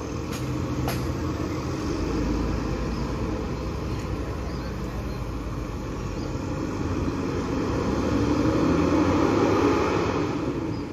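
An intercity bus's diesel engine rumbling steadily as the bus pulls away. It swells a little near the end, then cuts off suddenly.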